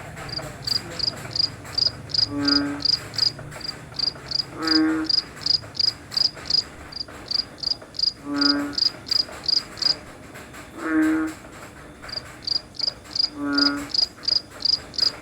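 Night chorus of crickets and frogs: crickets chirping in an even, high-pitched pulse of about three chirps a second, pausing briefly about ten seconds in, while a frog gives five short, low croaks a couple of seconds apart.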